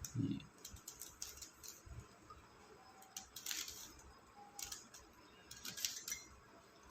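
Plastic clicks and scrapes of a 3x3 Rubik's Cube being turned by hand, face turns coming in irregular clusters, with a short low thump just at the start.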